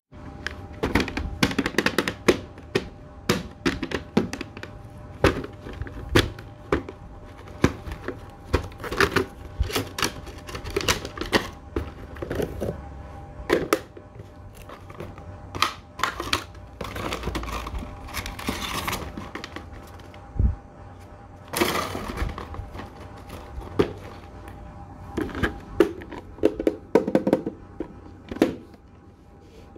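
Hands handling a plastic toy coin bank and its cardboard box: irregular knocks and clicks of plastic being turned over and set down, with a few longer stretches of cardboard rustling.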